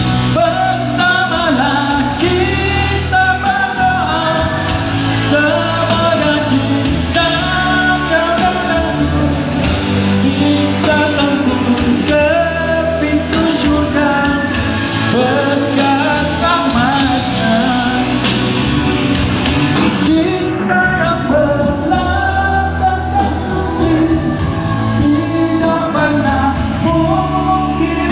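Live band music with a singer performing a Malay pop song, the melody carried over guitar and a steady beat.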